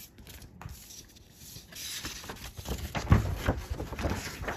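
Paper rustling and crackling as the pages of a printed book are turned, from about two seconds in.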